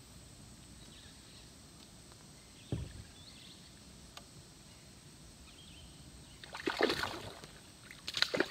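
A hooked smallmouth bass thrashing and splashing at the water's surface beside a kayak, in short noisy bursts near the end. A single dull knock on the kayak hull comes about three seconds in.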